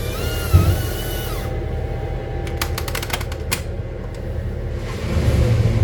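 A high motor whine from the tree-removal machinery dips and rises in pitch, then cuts off about a second and a half in. A quick rattle of sharp clicks follows. Under it a heavy engine rumbles low and grows louder near the end.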